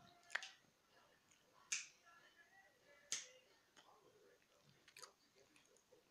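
Four sharp clicks over a faint, near-silent background, the first three about a second and a half apart and the last a little later.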